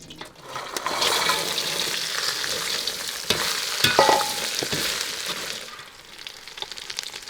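Lamb and naan pieces sizzling as they are stir-fried in a hot oiled pan, with the spatula scraping and knocking against the pan. The sizzle swells about a second in and dies down near the end, with a ringing clank about four seconds in.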